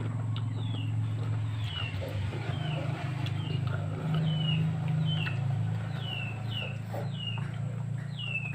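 A small bird chirping over and over in short, falling notes, over a steady low hum.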